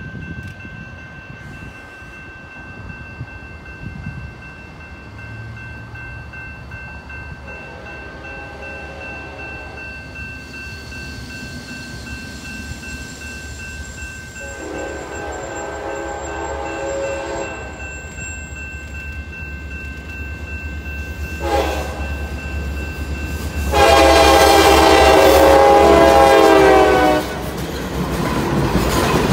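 A diesel freight locomotive's air horn sounds the grade-crossing signal as the train approaches: two long blasts, a short one and a final long blast that is by far the loudest. Under it is the rising rumble of the diesel engines. Near the end the locomotives pass close by, with their engines and the wheels on the rails.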